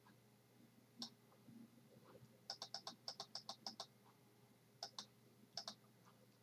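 Faint computer mouse clicks: a single click, then a quick run of about ten clicks, then two more single clicks.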